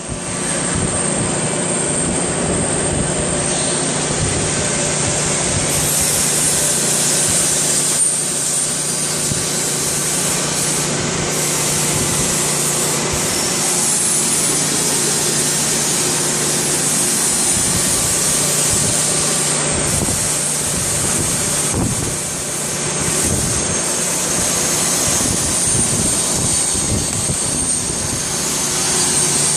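CNC lathe running: a steady machine noise with a low hum and a high whine.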